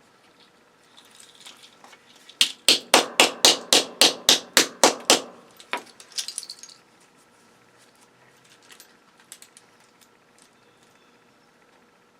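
A quick run of about a dozen hammer blows, roughly four a second, on scrap circuit breakers, followed by a couple of lighter knocks.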